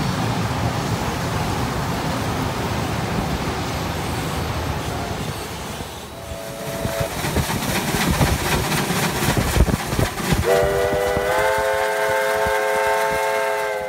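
A steady rumble of a train running, heard from the carriage. After about six seconds the train noise turns to a run of irregular knocks and clanks from a passing steam locomotive, with a short two-note toot. From about ten seconds in, the locomotive's multi-note chime whistle sounds and is held to the end.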